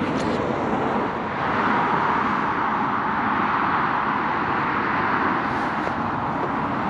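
Steady road traffic noise, the tyre hiss of passing cars, which grows louder about a second and a half in and holds.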